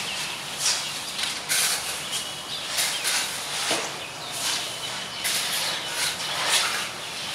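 WDM3D diesel locomotive running with a faint low engine hum, under short bursts of hiss that come about once a second.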